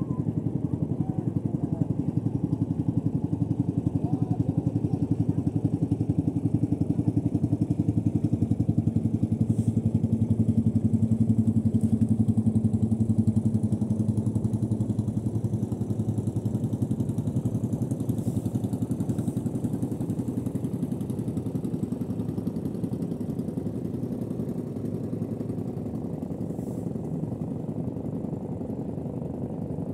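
A small motorboat engine running with a fast, steady putter. It grows louder about ten to fourteen seconds in, then slowly fades, as a boat passing by would.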